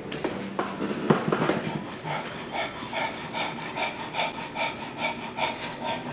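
A small dog panting, short quick breaths at about two and a half a second that start about two seconds in, after a few rustles and knocks at the start.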